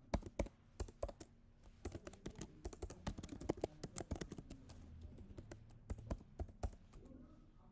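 Typing on a computer keyboard: a quick, irregular run of key clicks that stops about a second before the end.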